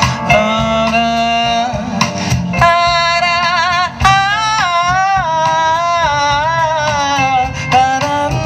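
Live jazz band playing: a violin and a woman's voice carry a wavering, vibrato melody over a rhythm section of bass guitar, drums and keyboard.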